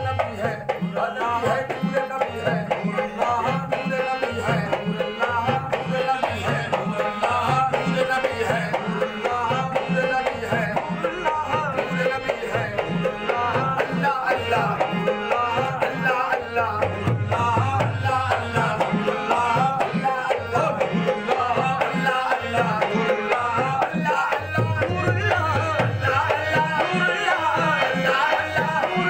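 Qawwali music: a harmonium and a hand drum keeping a steady, driving beat under voices singing a devotional refrain.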